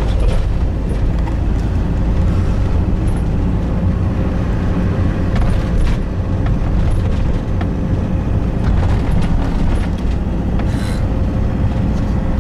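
Car driving at low speed, heard from inside the cabin: a steady low rumble of engine and road noise, with a few light knocks.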